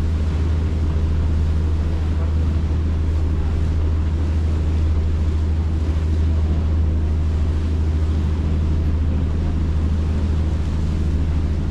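Cruise boat's engines droning steadily at a constant low hum, with a rush of wind and water over it.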